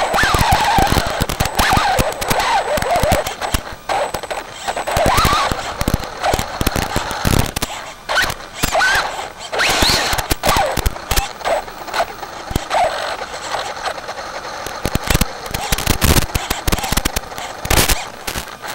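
Brushless motor of a Traxxas 4x4 Slash VXL RC truck whining up and down with the throttle, over fast, continuous rattling and knocking from the chassis, suspension and tyres as it drives over roots, dirt and wooden boards.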